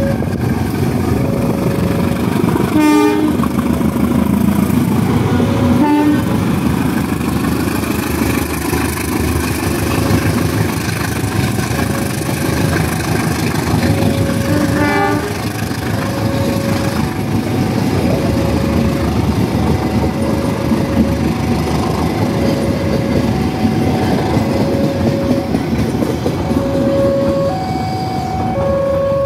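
A passenger train hauled by a CC 204 diesel-electric locomotive rolls past with a steady rumble of wheels on the rails. A level-crossing warning bell beeps about once a second, alternating between two pitches near the end. Three short horn toots are heard, the last about halfway through.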